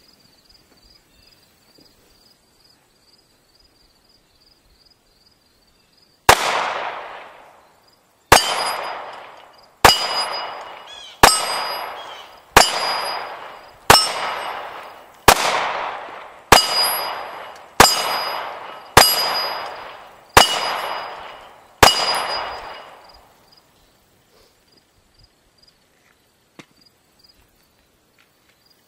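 Glock 19 9mm pistol fired twelve times at steel targets, about one shot every second and a half. Each shot is followed by the ringing clang of the steel plate, which dies away over about a second. The firing starts about six seconds in and stops a few seconds before the end.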